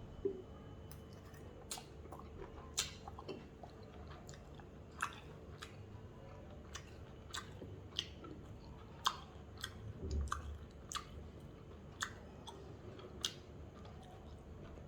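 A man chewing a mouthful of chicken egg noodles, with sharp wet mouth clicks and smacks at irregular intervals.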